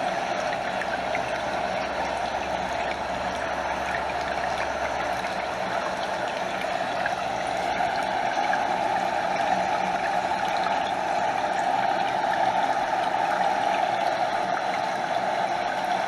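Stream water flowing steadily over rocks, with a gentle lapping and gurgling close by. It grows a little louder about halfway through.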